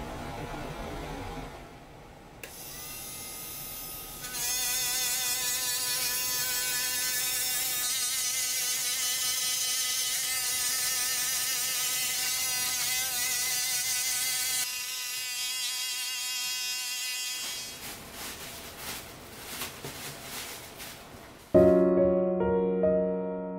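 Small handheld rotary polishing tool spinning a polishing wheel against cloisonné enamel, giving a high, steady whine that wavers slightly in pitch as it is pressed to the surface. The whine fades out in broken stretches, and gentle piano music comes in near the end.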